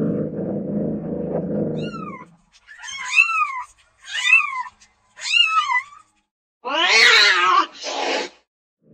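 Domestic cat vocalising. A low, continuous growl runs for about two seconds, then four short meows follow about a second apart, each rising then falling in pitch. About seven seconds in comes a louder, longer, harsher yowl, and right after it a brief hiss.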